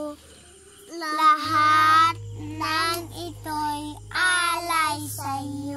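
A young girl singing a Tagalog song unaccompanied, in drawn-out phrases with long, wavering held notes.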